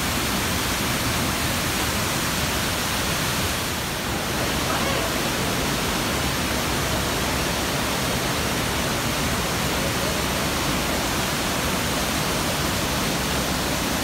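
Two-tiered waterfall about 20 metres high pouring into its pool: a steady, loud rush of falling water, dipping slightly about four seconds in.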